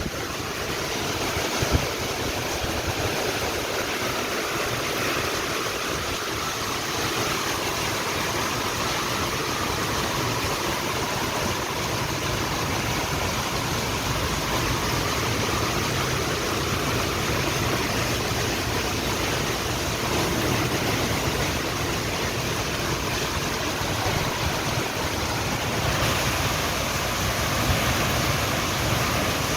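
Heavy rain falling steadily, an even rushing hiss, with a couple of brief knocks about two seconds in.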